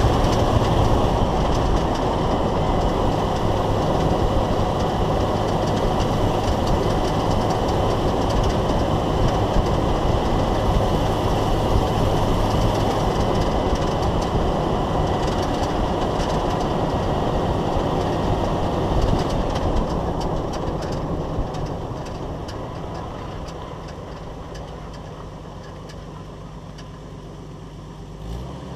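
Road and drivetrain noise heard from beneath a 1995 Jeep Wrangler YJ with a GM Corporate 14-bolt rear axle as it drives on pavement: a steady rush of tyre and running-gear noise that fades over the last several seconds as the Jeep slows.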